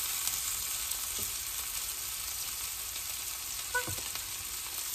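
Chopped onions sizzling in ghee in a cast-iron skillet, a steady high hiss as they cook down toward translucent. A light knock comes about a second in and another just before four seconds.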